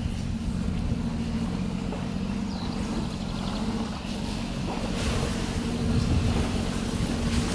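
Jeep engine running at low speed as it creeps down into a creek crossing, a steady low hum heard from inside the cab. About five seconds in a broader rushing noise joins it and it grows louder.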